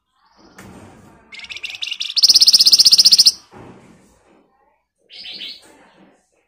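Horsfield's babbler (flamboyan) singing: a very fast, dense trill of repeated high notes that builds about a second in and is loudest in the middle, then a shorter burst of notes near the end.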